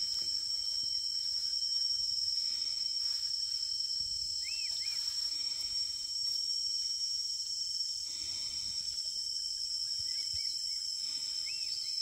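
Steady high-pitched drone of insects, unbroken throughout. A few faint short chirps come through it, around five seconds in and again near the end.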